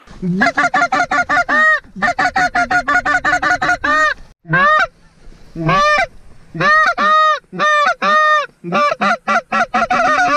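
Goose call blown by hand close to the microphone: fast runs of clucks, a short break about four seconds in, then slower, drawn-out honks and another fast run of clucks near the end.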